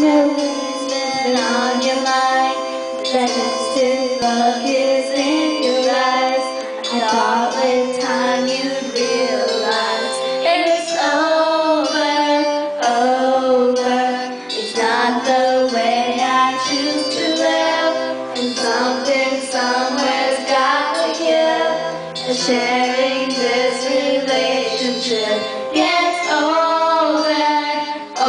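Karaoke singing: a female voice sings a melody over a music backing track.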